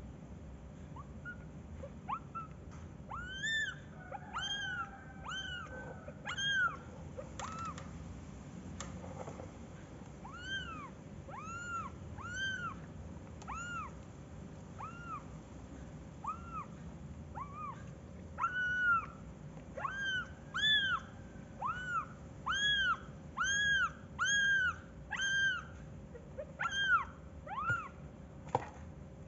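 Kitten mewing over and over: short, high calls that rise and fall, about one a second, coming closer together and louder in the second half.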